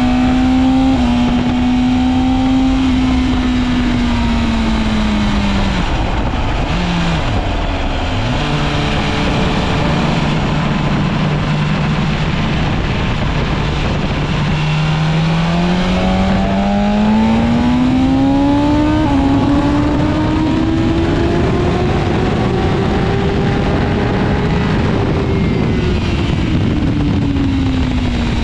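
Sport motorcycle engine heard from on board at track speed, over wind rush. Its pitch falls under braking and downshifts about a quarter of the way in, holds low for several seconds, then climbs steadily through an upshift and drops again near the end.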